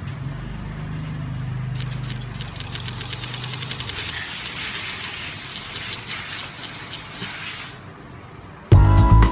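Industrial wetsuit sewing machine running: a motor hum, then about two seconds in a fast, even run of stitching clicks that lasts some six seconds and stops. Loud music starts near the end.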